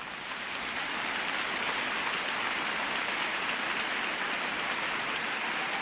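A steady, rain-like hiss of noise that fades in from silence over the first second or so and then holds level: the noise-bed opening of an electronic music track.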